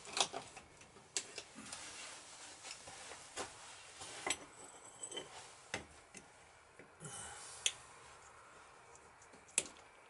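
Irregular clinks and clatters of small metal hand tools, a utility knife blade and long-nose pliers, being picked up, handled and set against a metal workbench and a steel seal housing.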